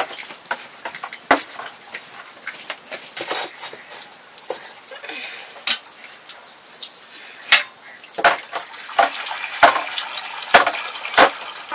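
Cooking sounds: metal pots and utensils knocking and clinking at irregular moments, about a dozen sharp strikes, over a low hiss.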